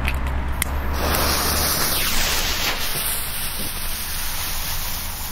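A few light clicks, then about a second in a lit Roman candle from a Weco Fire Fantasy assortment catches and burns with a steady, loud hiss as it sprays sparks.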